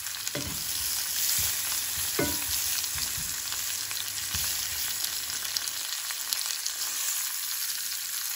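Sliced button mushrooms and kale sizzling in olive oil in a frying pan, a steady hiss. A wooden spatula knocks against the pan a few times as the mushrooms are tossed.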